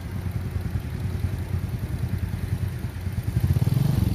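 Yanmar 82 rice combine harvester running as it cuts and threshes, a steady low engine rumble that swells louder near the end.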